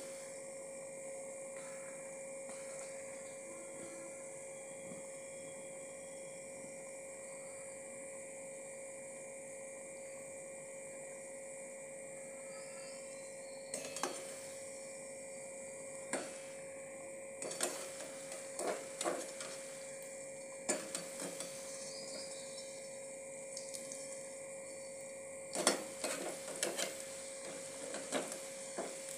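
Balushahi dough rounds frying in oil in an aluminium pan on a low flame, under a steady hum. From about halfway on, a metal slotted spoon clinks and scrapes against the pan now and then as the pieces are turned.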